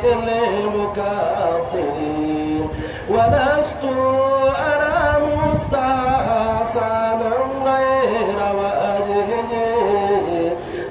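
A man singing Arabic devotional praise poetry (madih) solo and unaccompanied, holding long notes with ornamented glides between them.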